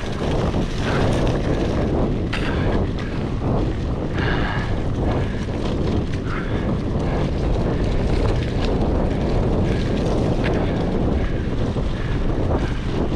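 Steady rushing noise of a mountain bike being ridden fast over a dirt trail, wind buffeting the action camera's microphone, with frequent short clicks and rattles from the bike over bumps.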